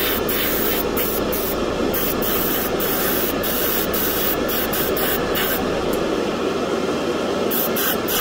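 An airbrush spraying paint, with a steady hiss of compressed air and a steady lower rush beneath it. The high end of the hiss breaks off briefly several times.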